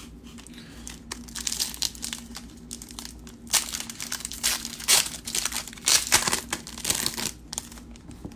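Foil wrapper of a trading-card pack crinkling and tearing as it is ripped open by hand, in several loud crackling bursts from about halfway in.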